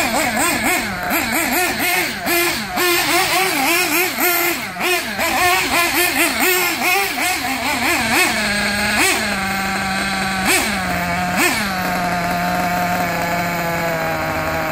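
Nitro engine of an RC buggy revving up and down in quick bursts as it is driven, then idling steadily with three short throttle blips before settling.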